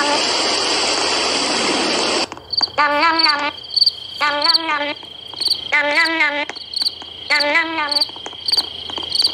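Game ambience: a steady rain hiss cuts off suddenly about two seconds in. It gives way to a looping night soundscape of crickets chirping and a frog croaking in wavering calls about every second and a half.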